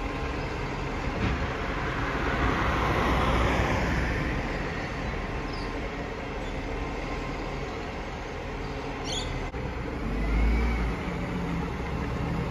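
Iveco garbage truck's diesel engine running steadily as the truck creeps forward. A broad rushing noise swells and fades about two to four seconds in, and the low rumble grows louder about ten seconds in.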